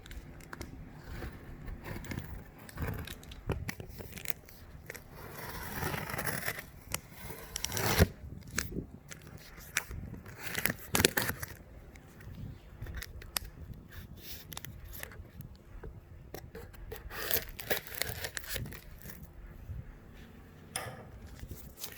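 Cardboard box and packaging being opened by hand: irregular tearing and scraping, with sharp knocks and clicks scattered through it.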